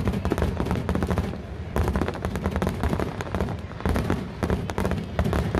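Aerial fireworks bursting overhead: dense, rapid crackling and popping reports, many a second, easing briefly about a second and a half in before picking up again.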